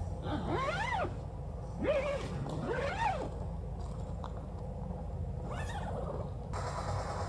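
Tent door zipper being pulled shut in several strokes, each rasp rising and then falling in pitch as the pull speeds up and slows down.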